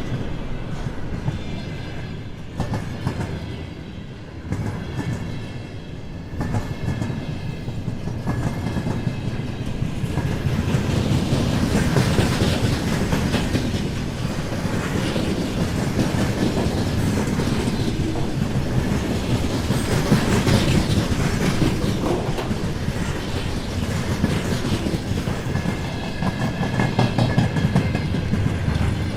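Freight train wagons rolling past, wheels clattering over the rail joints above a steady rumble that grows louder a few seconds in. A faint thin high tone comes and goes at the start and again near the end.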